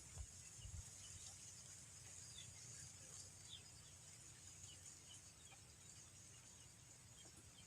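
Faint natural ambience: a steady high-pitched insect drone, with a few short, faint bird chirps scattered through it.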